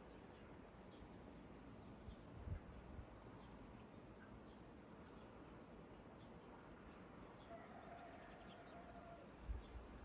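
Faint, steady high-pitched trill of crickets, with a soft low thump about two and a half seconds in and another near the end.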